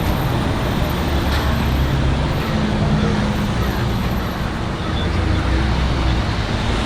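Steady vehicle noise: a low engine rumble under an even hiss of traffic.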